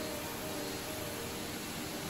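Steady rushing of a waterfall, with faint background music fading out about a second in.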